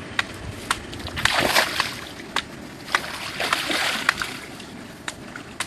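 Water splashing and sloshing, with two longer splashes about a second and three and a half seconds in, and scattered sharp clicks and knocks.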